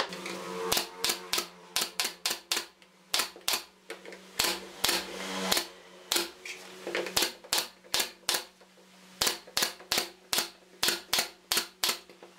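Pneumatic nail gun firing into thin wooden strips, a sharp clack with each shot, in quick irregular runs of two to four shots about two to three times a second.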